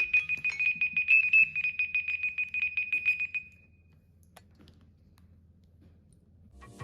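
Smartphone alarm or timer tone: a fast, even run of high chiming notes that cuts off about three and a half seconds in.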